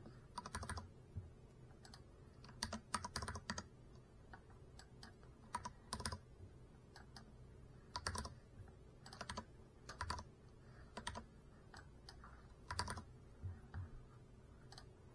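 Irregular light clicks and taps, scattered singly and in quick clusters of several, with pauses of a second or more between them.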